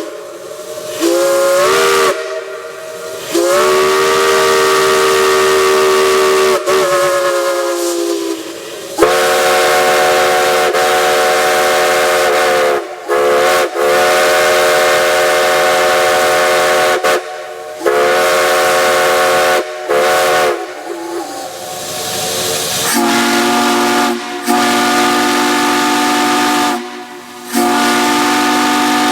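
Steam chime whistles blown in a run of long blasts with short breaks, each sounding a chord of several notes that slides in pitch as the valve opens and closes, with steam hissing throughout. The chords change from blast to blast as different whistles take turns, and a deeper chord comes in about two-thirds of the way through.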